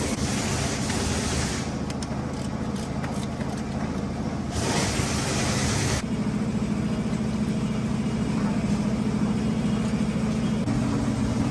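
Truck engine running steadily at idle, with abrupt shifts in tone about two, four and a half and six seconds in.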